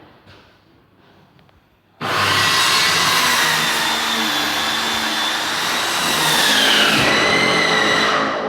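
A motor-driven power tool starts abruptly about two seconds in and runs loudly with a high whine; the whine drops in pitch near the end.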